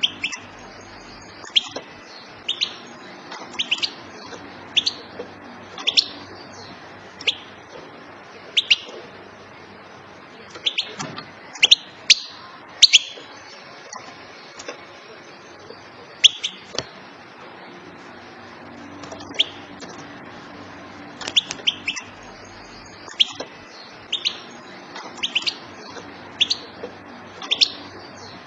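Female European goldfinch giving short, sharp call notes, repeated at irregular intervals, some in quick pairs or little clusters, with a couple of pauses of a few seconds.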